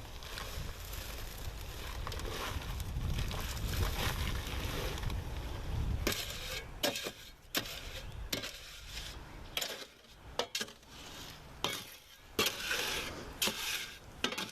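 Wet, soupy concrete being mixed by hand in a wheelbarrow: the tool scrapes and sloshes through the mix, continuous for the first half, then in separate strokes about every second. A low rumble runs under the first half.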